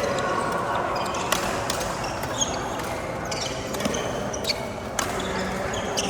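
Badminton play: several sharp racket hits on the shuttlecock at uneven intervals, with short high squeaks in between.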